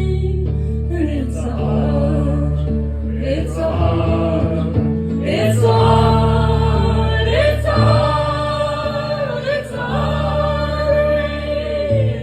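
Live band music: several voices singing long held notes together over sustained low chords that change every few seconds.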